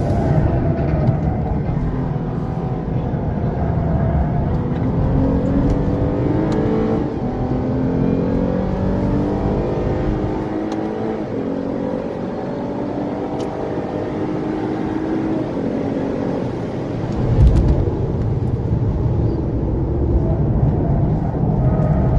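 2014 Lexus IS350 F-Sport's V6 engine heard from inside the cabin at speed on a race track. The engine note climbs in pitch over the first ten seconds under acceleration, then falls away as the low end drops off, with a short loud low surge about seventeen seconds in.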